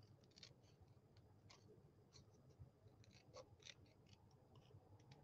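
Several faint, scattered snips of small scissors cutting the blinds out of a die-cut paper window piece.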